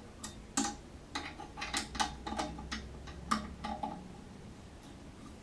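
A dozen or so light, irregular metallic clicks from a hand tool tightening the bolts on a freestyle scooter.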